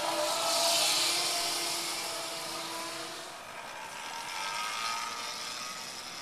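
Brammo Enertia electric motorcycle riding off: a steady electric-motor whine of several tones over a high hiss from tyres and air. It is loudest about a second in, and the whine fades out after about three seconds.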